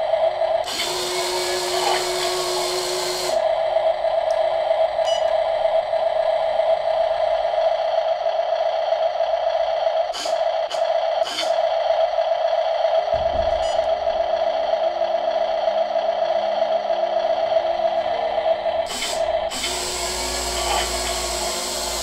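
MODSTER Digger 1:14 RC excavator running, a steady electric whine as its boom and bucket move. Two bursts of hiss come about a second in and near the end, and from about halfway a lower pattern of stepped tones joins in.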